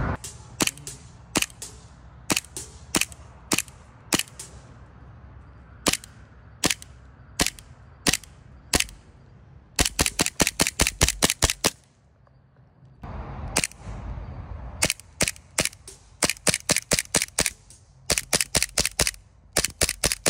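Lancer Tactical Knightshade Hi-Capa gas blowback airsoft pistol firing: single sharp cracks spaced out at first, then fast strings of shots about halfway through and again toward the end, with a short lull between.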